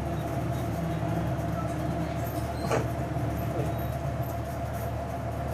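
Steady low mechanical hum, with a brief high chirp about halfway through.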